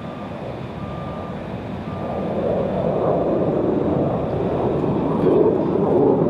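F-35A Lightning II's F135 afterburning turbofan jet engine rushing, growing louder from about two seconds in as the jet comes around. Early on, a reversing alarm beeps three times, about a second apart.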